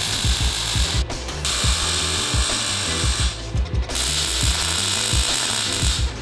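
Steady crackling hiss of a welding arc laying a bead, stopping briefly twice, over background music with a steady thumping beat.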